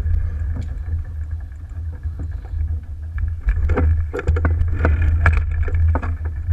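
Wind buffeting the camera's microphone on a sailboat under way, over the wash of water along the hull. Scattered knocks and clatter of gear and crew on deck come most thickly about four to five and a half seconds in.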